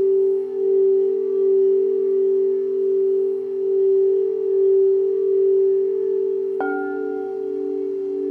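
Singing bowls ringing with a slow, wavering pulse in their tone. About six and a half seconds in, another bowl is struck, adding a new ringing note over the first.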